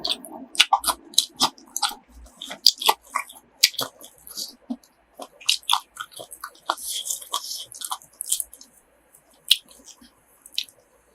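Chewing grilled pork offal close to the microphone: a quick, uneven run of crisp crunching clicks.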